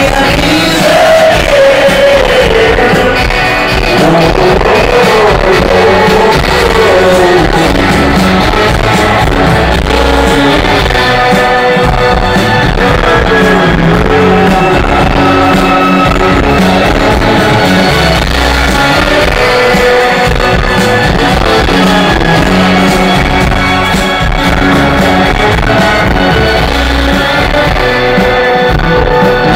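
Live rock band playing loud: electric guitars and drums with singing over them, heard from within the audience.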